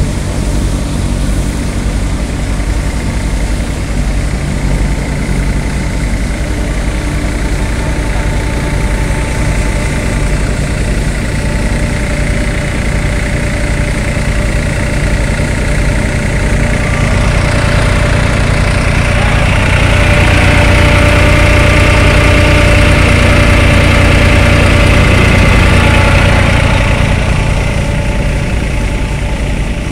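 Tractor engine driving a multicrop thresher as crop sheaves are fed into it: a steady, loud mechanical drone of engine and spinning threshing drum. It grows louder for several seconds past the middle, then settles back.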